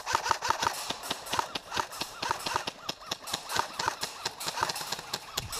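Running footsteps on a wet paved path, about four quick steps a second, with the player's gear and rifle replica rattling.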